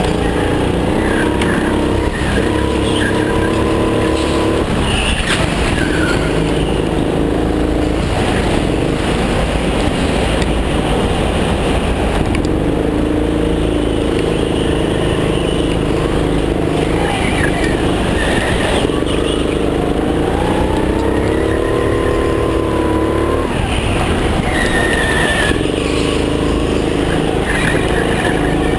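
Go-kart engine heard from on board, pulling hard and rising in pitch along the straights, then easing off into the corners, over and over.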